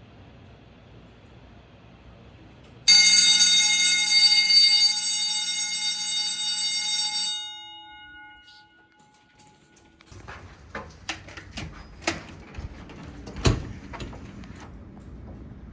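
Old Simplex fire alarm bell ringing loudly and continuously for about four seconds from about three seconds in, then cut off, its tone ringing down over the next couple of seconds. A series of sharp knocks and clicks follows.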